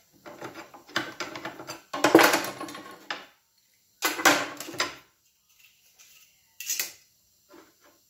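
A small bench-top sheet-metal brake and a thin sheet-metal bracket being handled and folded in it, giving irregular metallic clicking and clattering. There is a long run of rattling clicks, a second burst about four seconds in, and a short one near the end.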